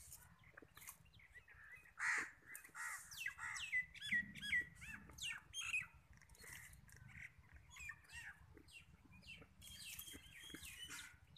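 Small birds chirping, with a quick run of rapid chirps from about two to six seconds in and sparser chirps after. Under them, faint rustling of dry twigs as goats nose through brush.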